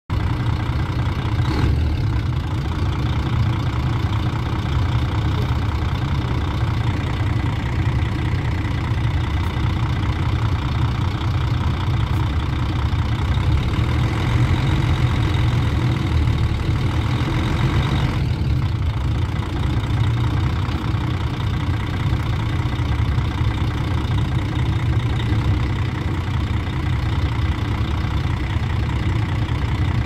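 Mercedes-Benz O-400RSD coach's diesel engine idling steadily, a deep even drone.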